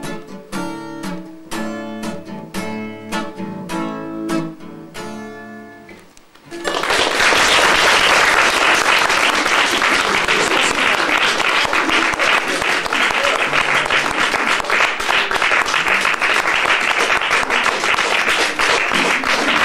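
Acoustic guitar strumming the closing chords of a song, fading out about six seconds in. Audience applause then breaks out and runs on steadily, and it is the loudest sound.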